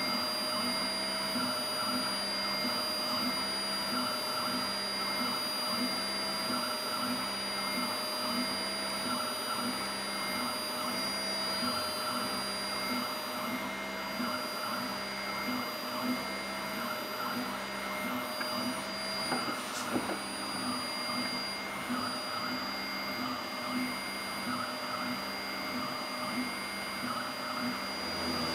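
CNC router's 48 V, 400 W DC spindle running near 5,000 RPM with a 1/8-inch bit spiral-drilling a screw hole in aspen, together with the machine's axis motors. Steady machine noise with a regular pulse somewhat faster than once a second, and a single sharp click about two-thirds of the way through.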